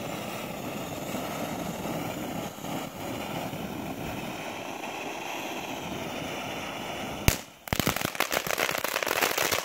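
Ground fountain firework spraying sparks with a steady hiss; about seven seconds in comes a sharp pop, then dense rapid crackling.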